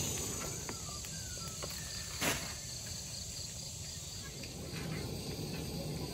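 Insects chirring steadily, a high continuous drone over a low background hiss, with one sharp click about two seconds in.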